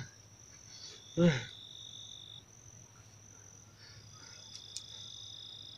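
Crickets trilling steadily at night in two high, unbroken tones. A short, loud voice-like sound cuts in about a second in.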